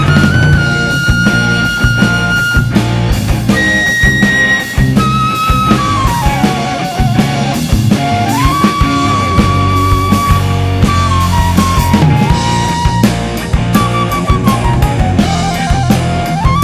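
Instrumental rock ballad: a single lead melody of long held notes that slide between pitches, over a drum kit and guitar.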